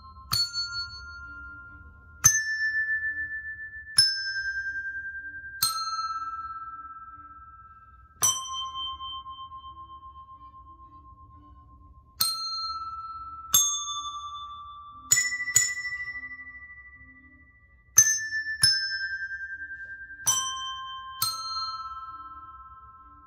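A set of colour-coded desk bells played one note at a time, each tapped on top to give a bright ding that rings on and fades. About a dozen notes make up a slow melody, with uneven pauses between them of up to about four seconds.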